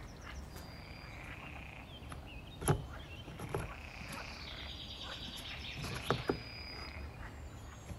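Thin clear plastic food-container lids handled and pressed down among cardboard egg crates: plastic rubbing and scraping, with a sharp click a little under three seconds in and two quick clicks about six seconds in.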